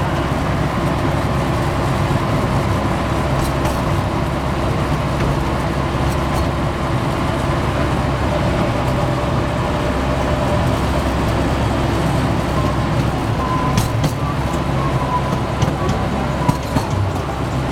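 Steady running noise of a small passenger ride train, heard from its open passenger car: a low engine hum over an even rumble.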